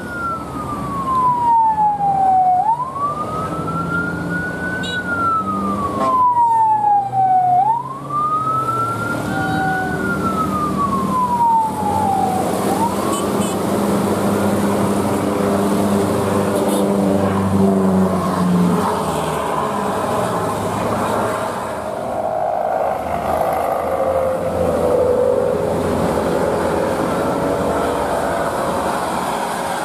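A siren wailing slowly up and down, about five seconds per cycle, for roughly three cycles before it stops. Underneath is steady traffic noise from trucks and buses on a hill road.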